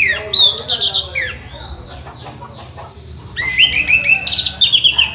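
Orange-headed thrush (anis merah) singing: two bursts of rich, varied whistles and quick trills, the first at the start and the second after a pause of about two seconds, with fainter notes in between. A steady low hum runs underneath.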